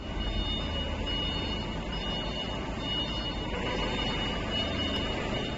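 Factory workshop background noise: a steady low rumble of machinery with a thin high beep repeating about once a second, like a warning beeper.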